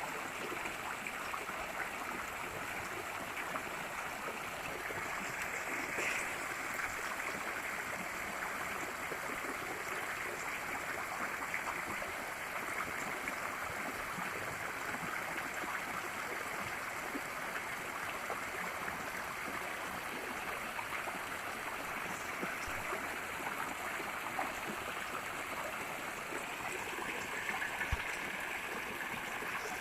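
Flowing water running steadily, with a soft thump near the end.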